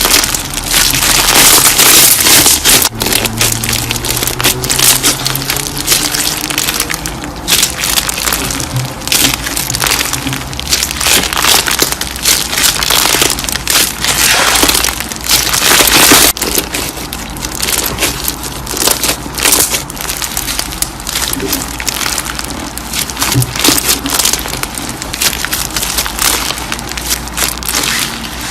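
Slime being squeezed and kneaded by hand, making dense crackling and popping.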